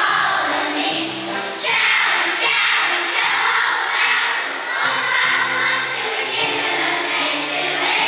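Two fourth-grade classes of children singing a song together as a choir, holding sustained notes.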